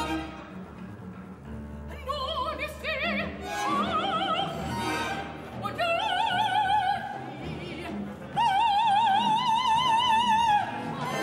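An operatic soprano sings several short, rising high phrases with wide vibrato, then holds a long high note for about two seconds that stops shortly before the end. Low sustained orchestral notes sound underneath.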